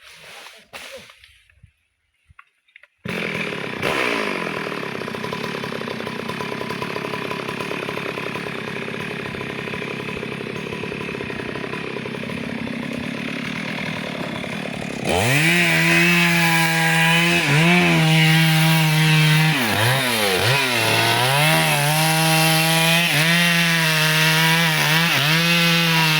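Chainsaw cutting teak. It comes in suddenly about three seconds in, then about halfway it jumps to full throttle, louder and more strongly pitched, with its pitch dipping several times as the chain loads in the wood.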